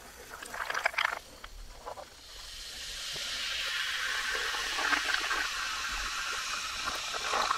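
Cola fizzing in an ice-filled glass held to the microphone, played in reverse. The hiss of the bubbles swells from about two seconds in and then holds steady, after a few light clicks near the start.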